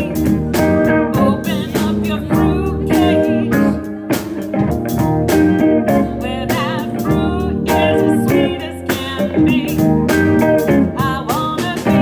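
A band playing a song: guitars over a steady drum beat.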